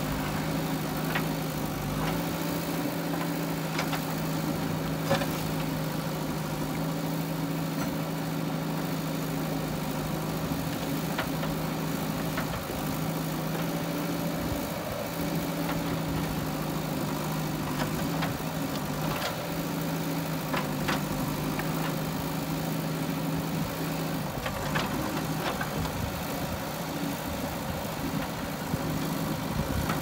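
JCB 3DX backhoe loader's diesel engine running steadily as the backhoe digs, its note shifting slightly a few times. Occasional sharp clanks from the digging arm and bucket.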